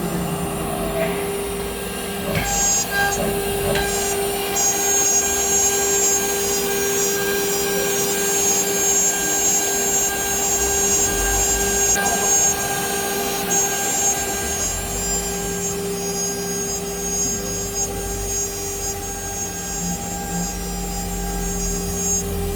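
CNC router with automatic tool change running a job: the spindle gives a steady whine, with higher-pitched tones joining a few seconds in.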